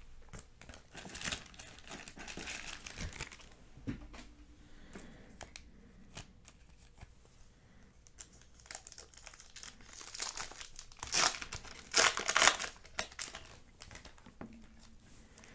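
2007 Bowman Chrome baseball card pack wrapper crinkling and tearing as it is opened by hand, in short rustling bursts. The loudest burst comes about eleven to twelve and a half seconds in.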